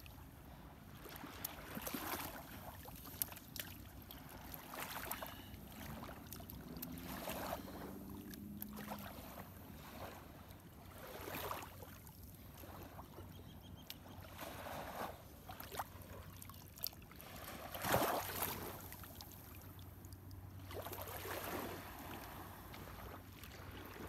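Small waves lapping onto a sandy beach in irregular surges, mixed with water sloshing and dripping as wet sand is scooped from a shallow water-filled hole. The biggest splash comes about three-quarters of the way through.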